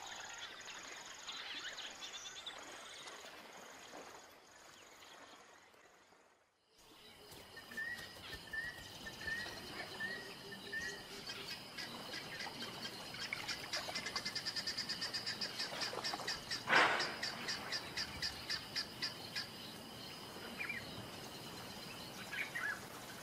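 Dusk bush ambience with birds calling: a row of about six short, evenly spaced chirps, then a rapid high pulsing trill, with one louder sharp call about two-thirds of the way through. The sound drops to near silence for about two seconds before the chirps begin.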